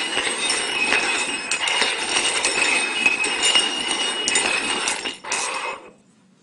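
Cups being shuffled and slid around on a table surface, a continuous scraping rattle with clinks, stopping about six seconds in.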